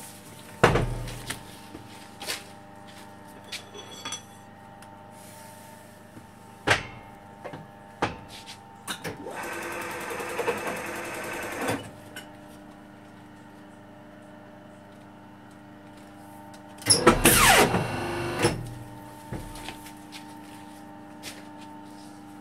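Wohlenberg guillotine paper cutter humming steadily as it runs. Over the hum come sharp knocks and rustles of paper stacks being handled and pushed into place on its table, a noisier stretch about ten seconds in, and a louder rattling burst a few seconds later.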